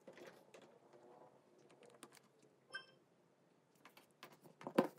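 Soft fingertip taps and handling clicks on a Xiaomi Redmi Note 6 Pro smartphone's touchscreen. A brief electronic beep comes a little past halfway, and a louder cluster of clicks comes near the end.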